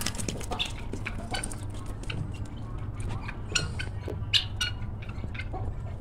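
Backyard birds (poultry, chicks and pet birds) giving scattered short chirps and calls throughout, over a low steady rumble.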